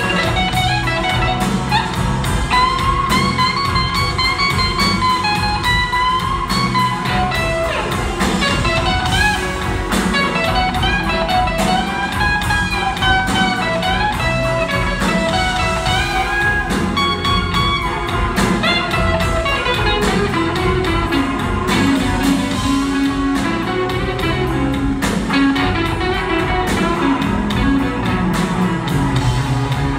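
Live blues band playing a slow blues instrumental passage, heard from the audience: an electric guitar lead with bending, gliding notes over drum kit, bass and rhythm guitar.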